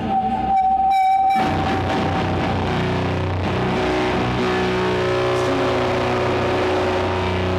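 Live doom metal band playing loud, slow, heavy guitar chords held for seconds at a time. A high steady tone sits over the first second and a half.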